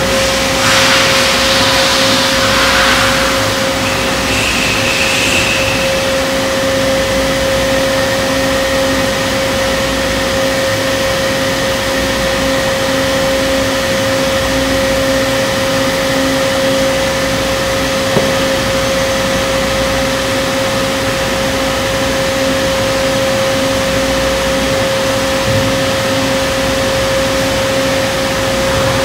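Doosan Puma V550-2SP CNC vertical turning center running under power: a steady whine over a low hum and machine noise. There is a burst of hiss near the start and a single click about two-thirds of the way through.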